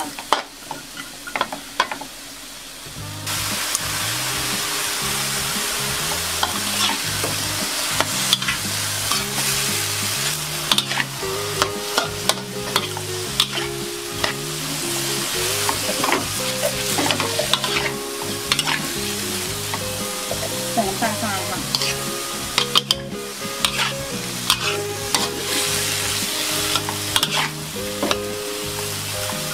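Stir-frying in a wok: bean sprouts, tofu and shiitake sizzling in hot oil while a spatula tosses them, with frequent scraping clicks. The sizzle gets louder about three seconds in.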